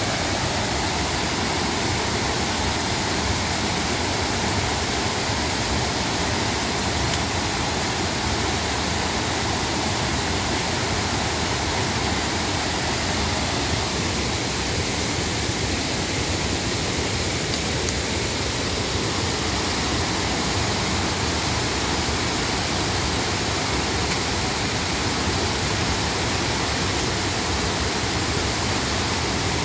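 Rain-swollen river pouring down a waterfall, a steady rush of white water.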